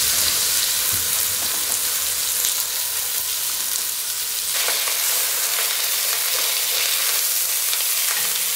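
Spice-rubbed chicken breasts sizzling as they sear in hot oil in a cast-iron Dutch oven. The sizzle grows louder about four and a half seconds in as more breasts are laid into the pot.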